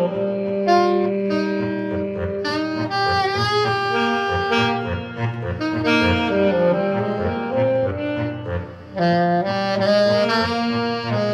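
Saxophone playing a slow melody of held notes, some with vibrato, over a musical accompaniment.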